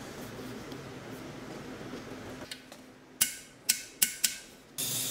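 A ratchet wrench tightening a differential fill plug: four short, fading bursts of clicking a little past halfway. Then a steady spray hiss starts near the end, over a low shop hum.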